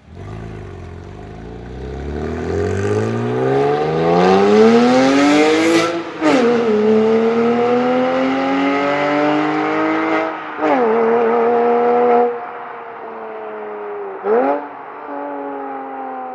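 Porsche Boxster S (987) 3.2-litre flat-six with a Capristo valved exhaust accelerating hard. The revs climb for about six seconds to an upshift and pull again through a second upshift about ten seconds in. It then lifts off, with one quick throttle blip near the end as the revs fall.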